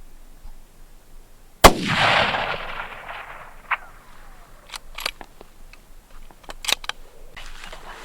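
A single shot from a Gunwerks rifle chambered in 6XC, about one and a half seconds in, its report echoing and fading away over about two seconds. Several light clicks follow.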